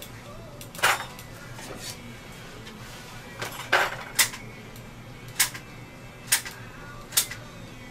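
Sharp clicks, about seven at uneven intervals, from the trigger of a dental impression-material dispensing gun being squeezed to push material out of its cartridge. A steady low hum runs underneath.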